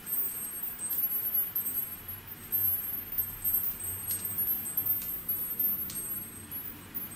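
Small hand-held metal chime on a cord, struck again and again, roughly once a second; each sharp ting is followed by very high ringing that hangs on between strikes.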